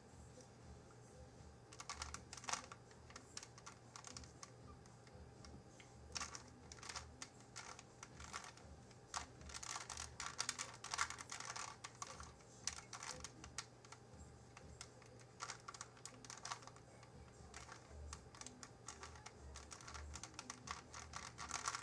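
Rubik's Cube layers being turned by hand: bursts of quick plastic clicks and rattles, with short pauses between runs of moves.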